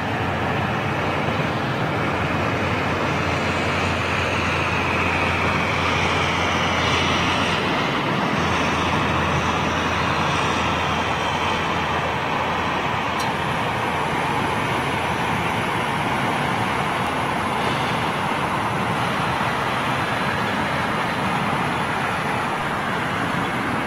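Jet engines of a departing Boeing 777 at climb power: a steady roar with a high whine in the first half that fades as the aircraft banks away.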